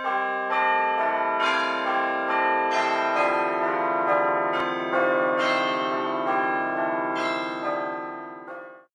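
Intro music of ringing bell tones, new notes struck every half second or so and ringing on over one another, fading out near the end.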